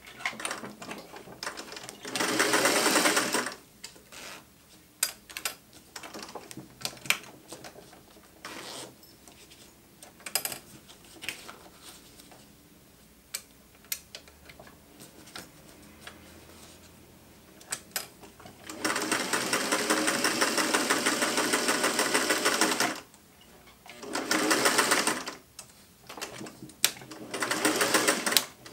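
Singer 503A 'Rocketeer' sewing machine stitching along a zipper in stop-start runs: a short burst about two seconds in, a steady four-second run past the middle, then two short bursts near the end. Sharp clicks and knocks of handling the machine and fabric fall between the runs.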